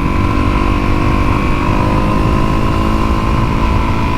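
Honda CRF250L's single-cylinder four-stroke engine running at a steady pitch as the bike rides along, with wind and road rumble underneath.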